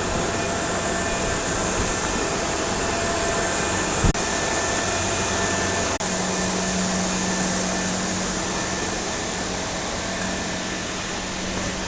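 Steady machine noise like a blower or fan running, a hiss with a low hum underneath, briefly cut about four and six seconds in.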